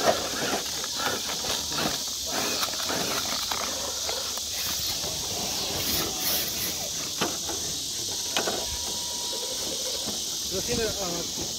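Steady chorus of night insects, a constant high-pitched hiss. Faint voices and a few light clicks sound underneath.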